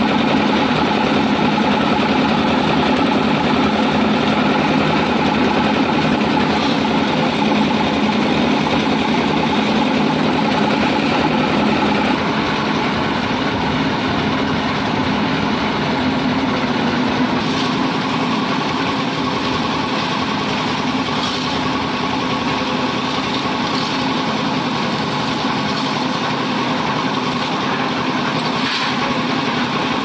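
Small stationary single-cylinder diesel engine running steadily under load, belt-driving a concrete mixer's drum.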